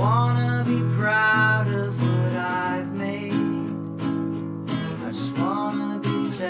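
Instrumental stretch of a home song demo: strummed acoustic guitar over steady low notes, with a higher melody line that slides up into its notes at the start and again about five seconds in.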